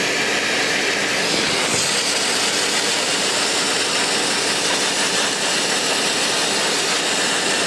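Abrasive blast nozzle spraying garnet grit on compressed air against soft old brick, a loud, steady hiss as it strips the old plaster. It is set gently, to about 5 bar with a little media, so as not to damage the bricks.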